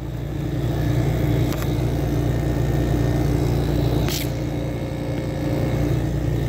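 1975 Climatrol (Fedders) window air conditioner running with its Matsushita rotary compressor and fan, making a steady, really noisy hum with a couple of faint ticks; the noise comes from worn-out compressor mounts.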